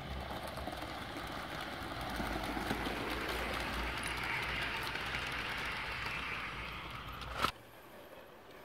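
Garden-scale model train running on its outdoor track, a rolling rumble of wheels on rails that swells and then eases off. A sharp click about seven and a half seconds in, after which the sound drops away to a faint hiss.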